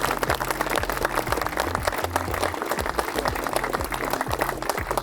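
Crowd applauding and clapping, with background music and a stepping bass line playing underneath.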